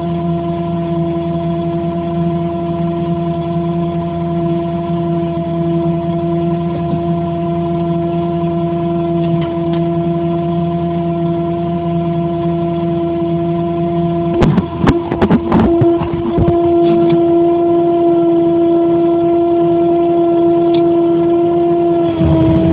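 Crane truck's engine running at a steady speed, a constant-pitched drone. A burst of sharp knocks about two-thirds of the way in, and the pitch drops slightly near the end.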